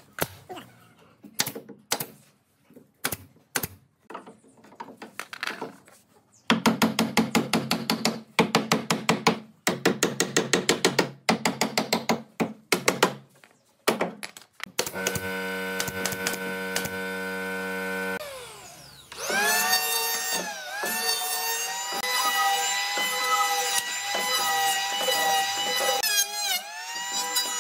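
Hammer strikes on pallet wood: scattered knocks, then a quick run of blows for several seconds. Then an electric hand planer's motor starts, and from about two-thirds of the way in its pitch dips and recovers again and again as the blade bites into the rough pallet boards.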